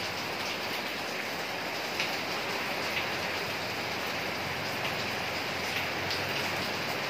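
Steady rain falling, with a few sharper drop hits close by about two and three seconds in.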